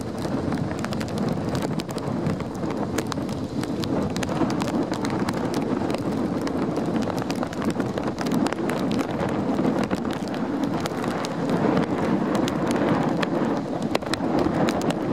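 Gusty wind blowing across the microphone, a steady low rushing with many small sharp clicks and rattles.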